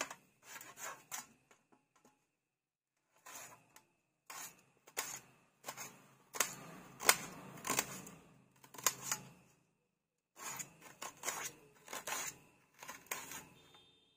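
Small kitchen knife slicing a red onion on a stainless steel plate: repeated crisp cuts with the blade clicking against the metal, in several runs with short pauses between them.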